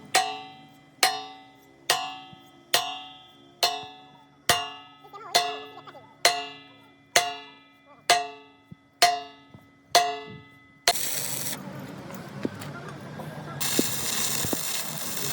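Hammer striking steel at a steady pace, about a dozen blows a little under a second apart, each ringing out; near the end the blows stop and a steady hiss takes over.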